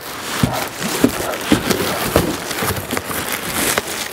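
Cardboard box and plastic-foam packing wrap being handled as a headlight is lifted out, rustling and crackling irregularly, with several sharp knocks of cardboard.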